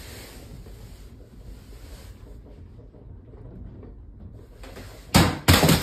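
Low rumbling noise of a room shaking in an earthquake, then a burst of loud clattering knocks about five seconds in.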